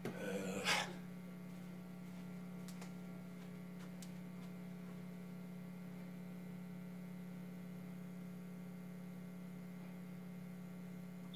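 Steady electrical mains hum, typical of a powered tower speaker switched on and idling with an aux cable connected and nothing playing. A short rustling noise sounds in the first second.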